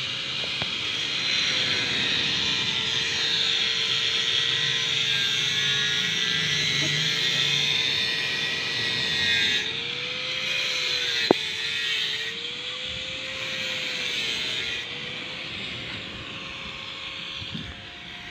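A steady engine drone whose pitch wavers gently up and down, over a steady hiss, with a single sharp click about eleven seconds in.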